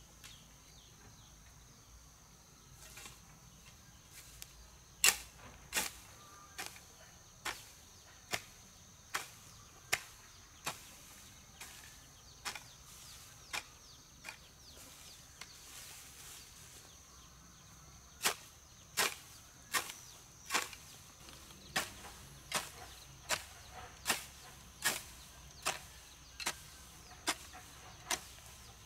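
Sharp, evenly paced chopping strikes of a blade, about one every 0.8 s, in two long runs with a pause of a few seconds between them, over a steady high insect drone.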